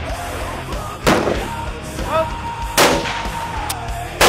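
Rifle shots from precision match rifles: two loud, sharp cracks about a second and a half apart, and a third right at the end.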